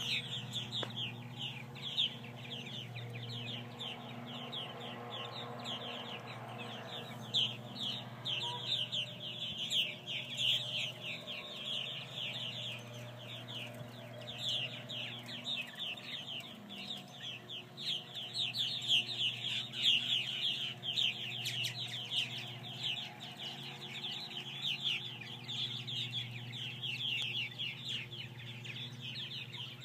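A large flock of purple martins calling as they circle their colony houses: a dense, continuous chatter of quick, downward-sliding chirps.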